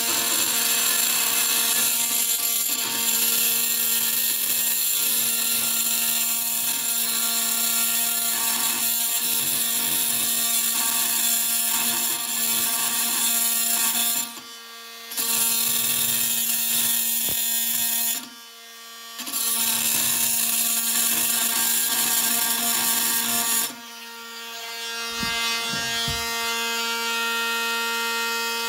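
Cordless oscillating multi-tool running with a steady buzz as its blade cuts into a rusted steel pipe fitting on a convector radiator. It stops briefly twice in the middle, and near the end it goes quieter, then gradually builds again.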